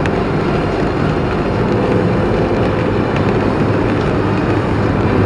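Steady road and engine noise heard from inside a car's cabin while it cruises at about 110 km/h on a wet motorway, with tyres running on the wet surface.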